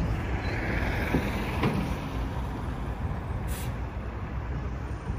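Street traffic with a city bus's engine running close by: a steady low rumble, a few faint knocks, and a short high hiss about three and a half seconds in.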